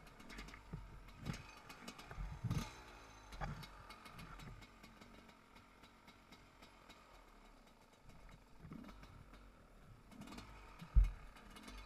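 A 300 cc two-stroke enduro motorcycle running at varying revs, with scattered clicks and knocks. A loud, dull thump comes about eleven seconds in.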